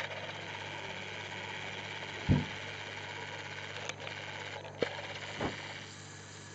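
A few dull thumps and taps on a wooden floor, the loudest about two seconds in, over a steady low hum.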